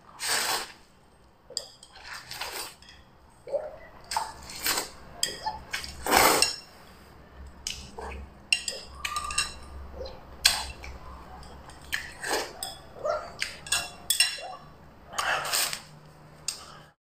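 A person slurping instant noodles loudly off chopsticks, a series of separate sucking slurps, with light clicks of chopsticks against the bowl.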